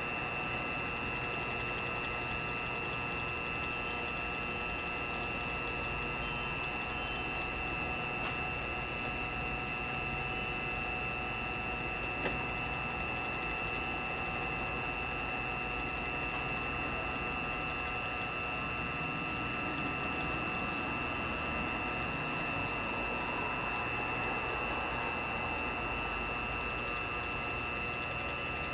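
Pen-turning lathe running steadily at speed, a constant motor hum with a high steady whine, during the CA glue finishing of the holly pen blanks. A single small click sounds about twelve seconds in.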